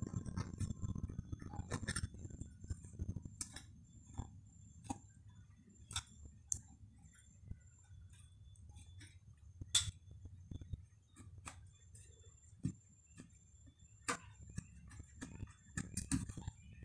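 Scattered light clicks and knocks of gloved hands working inside a wooden hive box, over a low rumble that is louder at the start.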